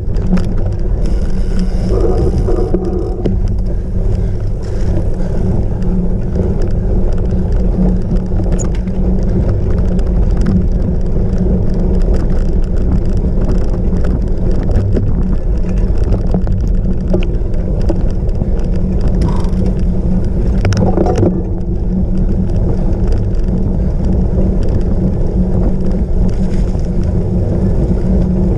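Steady, loud riding noise of a cyclocross bike: tyre and drivetrain rumble over rough ground with wind on the microphone.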